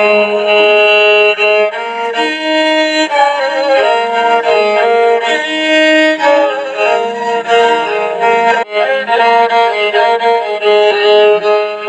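Instrumental break in a Santali devotional song: a melody of held notes over a steady low drone.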